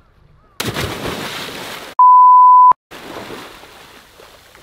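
A man plunging into the sea: a loud splash starts about half a second in and runs for over a second, then a loud steady electronic beep, one pitch, cuts in for under a second, then the water churns and sloshes as he surfaces and swims.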